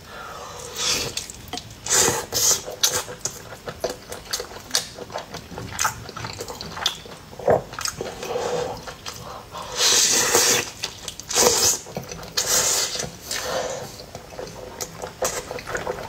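Wet eating sounds of a man chewing and sucking saucy braised beef short rib off chopsticks: many short moist clicks and smacks with uneven louder bursts of slurping.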